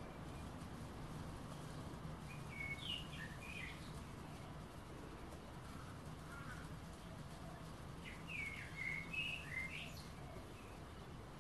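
A bird singing two short bursts of chirping, warbling notes, about two seconds in and again around eight seconds, over a faint steady low hum.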